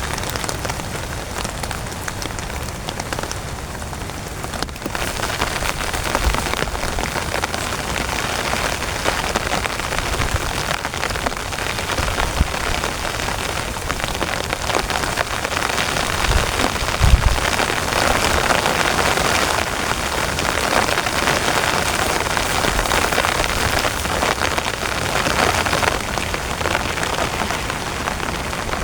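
Heavy rain pattering steadily on a tent's fabric, swelling a little past the middle, with a few short low thuds.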